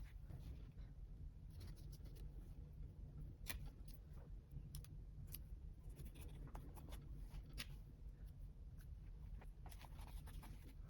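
Quiet paper and stationery handling during journal collage work: scattered light taps, scratches and rustles of paper, over a steady low hum.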